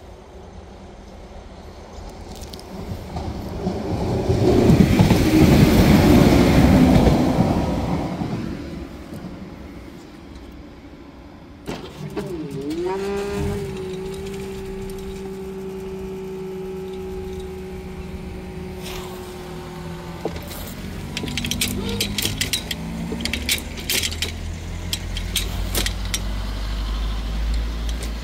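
A passenger train passes over the crossing, its noise swelling to a peak and fading within a few seconds. About twelve seconds in, the level crossing barrier's drive unit starts with a jolt and hums at a steady pitch for about eight seconds as the boom slowly lifts, then cuts off suddenly. Cars then move off over the crossing with a low engine rumble and scattered clicks and knocks.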